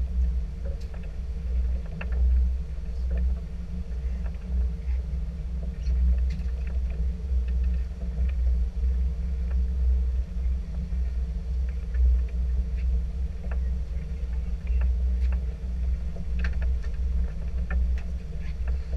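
A fishing boat's engine idling, a steady low rumble with a faint hum above it, and a few light clicks scattered through.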